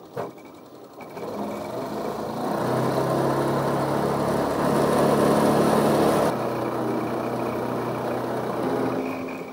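Boat motor running: a steady low hum, with a rushing noise over it that builds and cuts off sharply a little past halfway, while the hum carries on and fades near the end.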